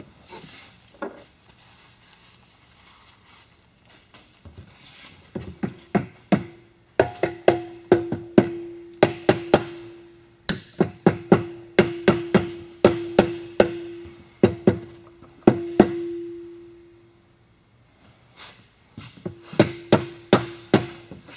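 Rapid series of taps on a metal engine part, about three a second, each strike leaving a steady ringing tone that hangs on between them. The tapping stops for a few seconds and then starts again near the end.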